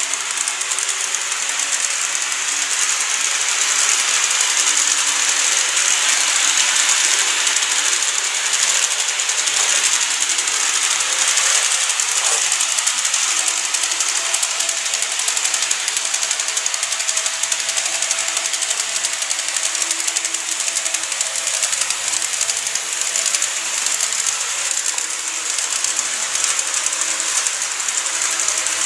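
KATO E259 series Narita Express N-gauge model train running along the track: a steady mechanical whirr of its motor and gears with the hiss of wheels on the rails.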